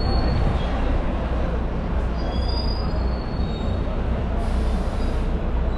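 Steady low rumble of a moving bus with road noise, with a few faint high squeaks.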